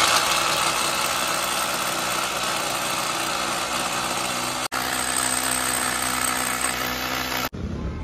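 Corded electric drill running steadily as it drills into a steel door frame to fit hinges. It drops out briefly a little past halfway and stops shortly before the end.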